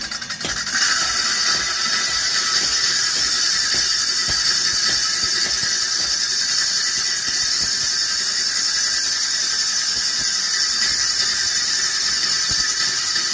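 Steel sickle blade being ground on a belt-driven grinding wheel: a steady, high-pitched grinding hiss that starts about a second in.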